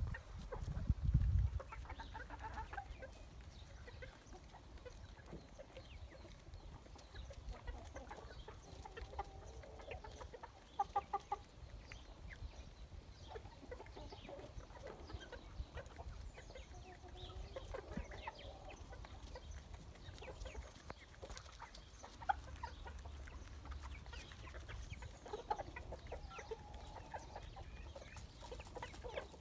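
A flock of Silver Appenzeller Spitzhauben chickens clucking softly on and off as they forage, with short scattered calls. A brief low rumble sounds near the start.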